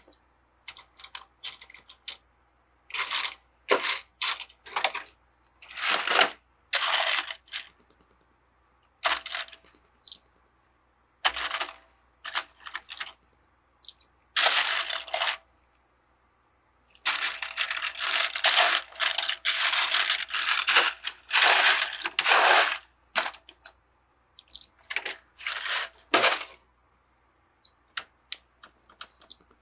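Loose plastic Lego pieces clattering and rattling as they are sifted through by hand, in short bursts of clicks, with a longer run of rattling a little past halfway.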